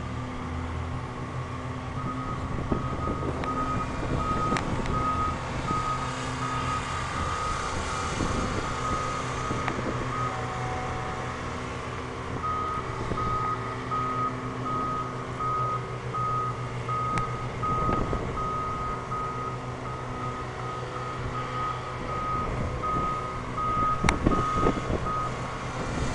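Backup alarm on a railroad maintenance-of-way work vehicle, beeping evenly at about two beeps a second, falling silent for a couple of seconds partway through and then resuming, over a diesel engine running. A few sharp metallic clanks, the loudest near the end.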